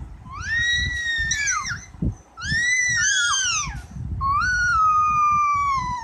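Rose-ringed parakeet giving three long, loud screeching calls, each about a second and a half, rising and then falling in pitch; the last is lower and slides slowly down.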